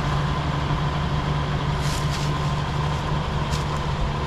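A vehicle engine idling steadily, with a few light clicks about halfway through.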